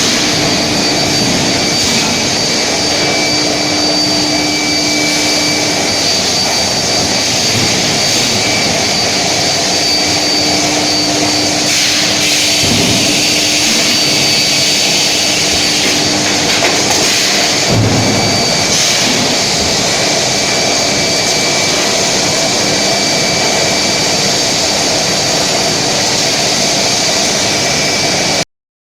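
Steel billet induction heating furnace line running: a steady, loud machine noise with a high, steady whine and a few brief knocks. It cuts off abruptly near the end.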